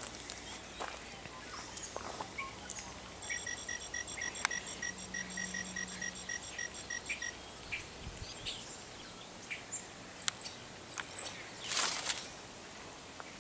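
Electronic speaker horns playing low-quality synthetic nature sounds from digital sound chips: a regular artificial chirping, about three chirps a second, for a few seconds in the middle, like a digitised cricket or bird. Near the end come a few louder, short, sharp chirps.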